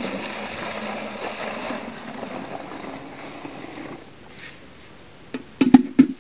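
Maple sap pouring from a metal sap bucket into a plastic pail, a splashing stream that tapers off over about four seconds as the bucket empties. Near the end, a few sharp metallic clanks as the empty metal bucket is hung back on the tree's tap.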